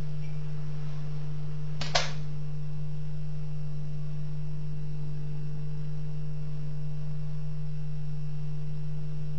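A steady low hum, with a single short click about two seconds in as the metal ball is set down on the liquid-nitrogen-chilled metal ring, which has shrunk so the ball rests on it and cannot pass through.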